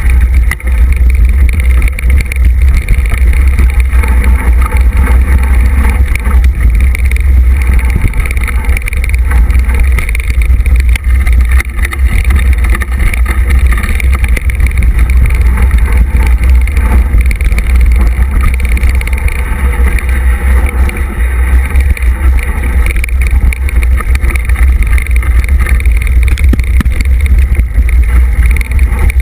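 Heavy wind buffeting and rumble on a bike-mounted camera riding fast down a rough, leaf-covered dirt trail, a continuous loud low roar with the rattle of the ride.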